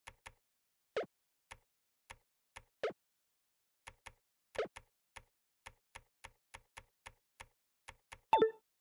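Computer keyboard keys struck one at a time at a slow, uneven touch-typing pace, about two to three clicks a second, with a few louder, deeper strokes, the space bar among them. Near the end comes a louder double knock.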